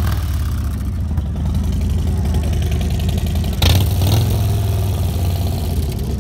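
Harley-Davidson V-twin motorcycle engine running steadily at low revs close by, with a short louder burst about three and a half seconds in.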